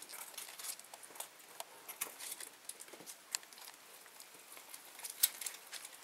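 Faint scattered light clicks and rustles of hands handling coiled black power extension cords and their hang tags, with one sharper click about five seconds in.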